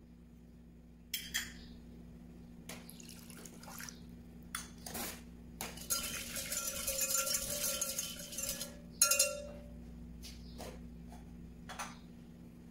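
A wire whisk beating lime juice with salt and pepper in a glass measuring jug: a rapid scratchy rattle for about three seconds, ended by a sharp, ringing clink of metal on glass. Light clinks and taps of small kitchenware come before and after.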